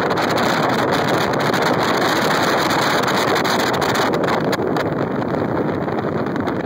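A bass boat under way: a steady rush of wind buffeting the microphone, over the noise of water and motor.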